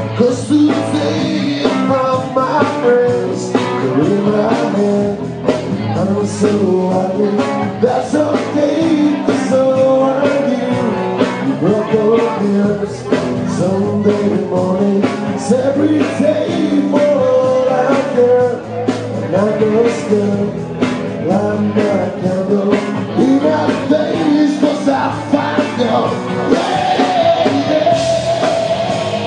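Live rock band playing a song, with guitar and singing.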